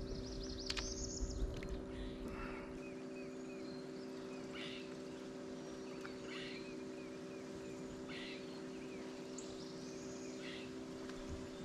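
Birds chirping, several short call phrases repeated every couple of seconds, over a steady low hum and a low rumble that fades out about three seconds in.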